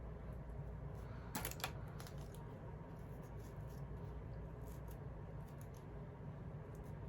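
Faint small clicks and taps of objects being handled, with a short cluster about a second and a half in, over a low steady hum.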